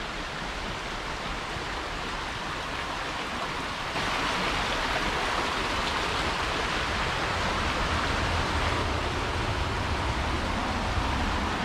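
A steady rushing noise, stepping up suddenly in level about four seconds in.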